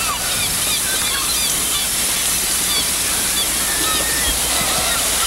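Sea washing against a rocky shoreline, with many seabirds giving short, scattered calls throughout. A steady low hum runs underneath.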